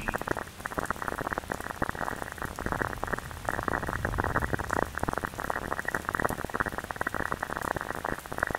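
Dense, irregular crackling of many tiny clicks with the treble cut off, rough like rain or static.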